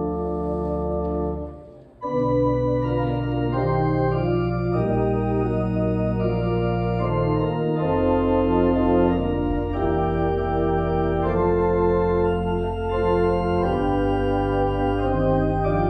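Church organ playing the postlude: sustained chords over long, deep bass notes. The music fades and breaks off briefly about two seconds in, then resumes louder.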